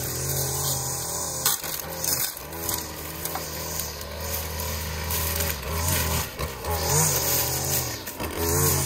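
Gas string trimmer running, its engine speed rising and falling as the line cuts weeds and grass along a flower bed edge.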